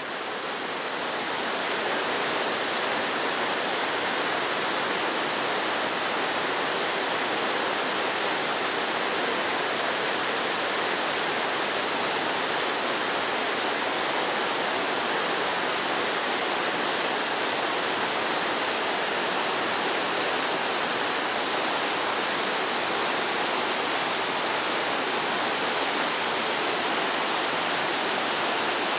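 Fast mountain stream rushing over boulders in small cascades: a steady roar of white water that fades in over the first two seconds and then holds even.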